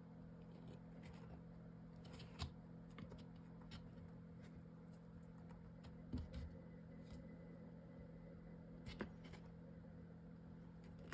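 Near silence: room tone with a steady low hum and a few faint taps and rustles as glued chipboard pieces are handled and pressed into place.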